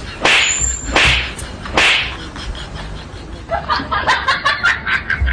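Three swishing hit sound effects about three-quarters of a second apart, dubbed over a staged fight, followed by a quicker patter of short sounds.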